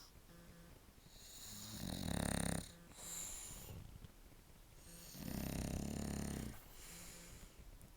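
A sleeping dog snoring: two loud, low, rattling snores about three seconds apart, with softer breathing between them.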